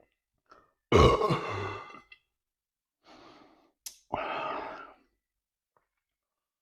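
A man burps twice: a loud, low, drawn-out burp about a second in, then a quick breath and a second, shorter burp about three seconds later.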